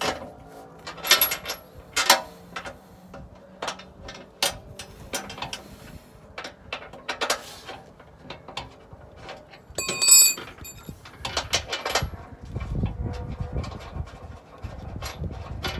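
Irregular metallic clicks and clinks of bolts being started by hand into a zinc-plated steel skid plate, with a brief ringing clink about ten seconds in. Wind rumbles on the microphone near the end.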